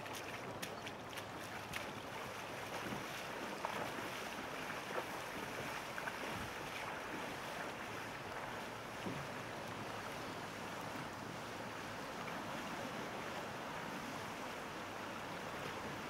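Steady rush of a fast-flowing river past a gravel bank, with some wind on the microphone. A few light knocks come in the first couple of seconds.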